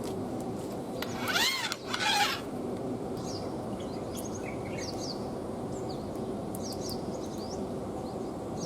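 Small birds chirping faintly over a steady outdoor hum at a fishing spot. About a second and a half in comes a brief louder sound, a rising-and-falling tone followed by a short burst of noise.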